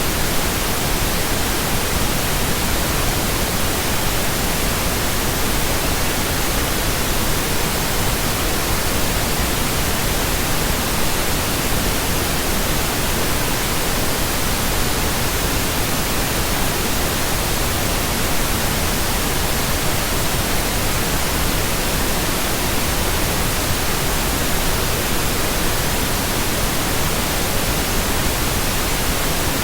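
Steady generated pink noise: an even hiss spread across all pitches, unchanging throughout.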